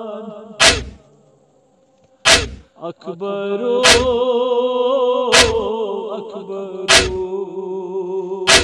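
Male voices chanting a noha, a Shia lament, in long held wavering lines, paced by a loud hard beat about every one and a half seconds. The voices drop out briefly about a second in and come back near three seconds.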